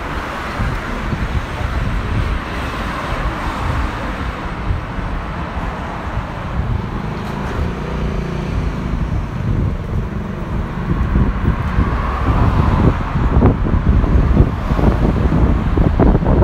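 City street traffic passing, with wind buffeting the microphone and growing stronger in the last few seconds.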